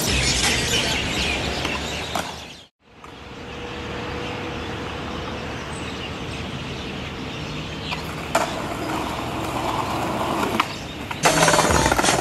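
Outdoor street ambience: steady traffic noise with a faint hum and a couple of sharp knocks, after background music cuts off abruptly about two and a half seconds in. The music comes back louder near the end.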